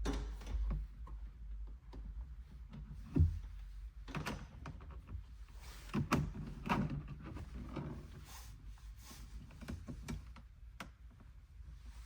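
Handling noises from working on parts: scattered knocks, clicks and rustles, with one heavier thump about three seconds in and a busier stretch of handling a few seconds later.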